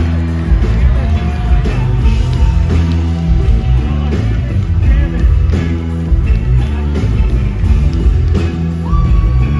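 Live blues-rock band playing: an electric guitar lead with notes bent up and held, over bass and drums.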